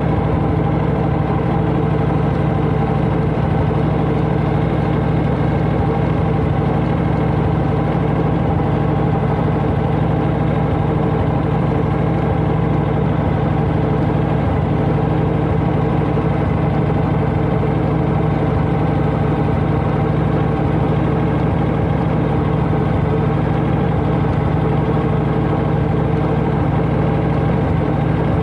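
1992 Harley-Davidson Heritage Softail Classic's 1340 cc Evolution V-twin idling steadily, with no revving.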